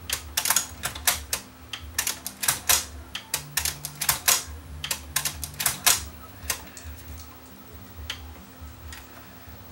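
Panasonic SA-CH11 cassette deck clicking rapidly and irregularly as its tape-detector switches are pressed by hand and the mechanism tries to engage, thinning to a few single clicks after about six seconds. The deck is failing to go into the right mode, which the repairer puts down to dirty detector switches.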